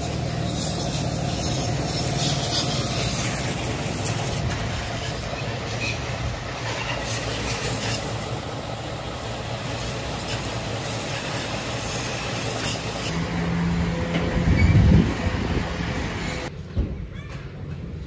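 High-pressure washer spraying water onto a motorcycle: a steady hiss of spray over the running hum of the washer pump. A brief louder low bump comes shortly before the spray hiss cuts off near the end.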